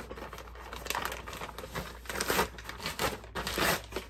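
Large plastic packaging bag crinkling and rustling as it is handled, in a few louder bursts.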